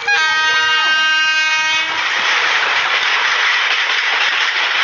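Horn of an Indian Railways WAP-7 electric locomotive sounding one blast of about two seconds, cutting off sharply, followed by the steady rumble and clatter of the train running on the track.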